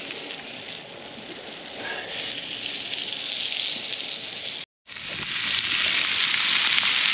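Food sizzling in a frying pan over a campfire. The sound cuts out for an instant a little past halfway, and the sizzling is louder after it.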